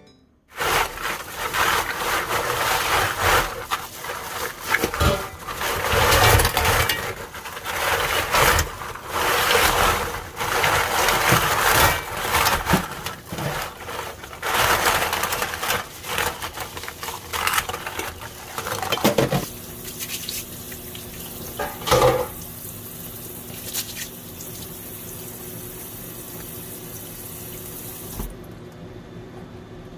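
Kitchen tap running into a sink with water splashing and dishes knocking, uneven as things are moved under the stream. The water stops about two-thirds of the way through, leaving a low steady hum and one clatter.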